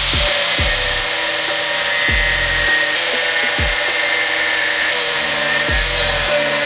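Angle grinder with a thin cut-off disc cutting into steel channel: a steady high whine over a grinding hiss. Background music with a regular beat plays along with it.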